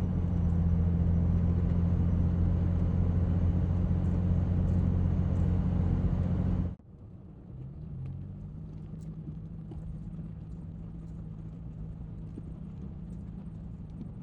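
Vehicle engine running at a steady drone with a strong low hum. About seven seconds in it cuts off abruptly and is replaced by a quieter, lower engine hum.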